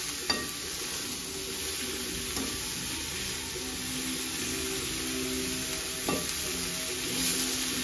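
Shredded cabbage and onion sizzling in a steel kadai while a slotted steel spatula stirs them, with a steady frying hiss and a couple of sharp spatula clicks against the pan, one near the start and one about six seconds in.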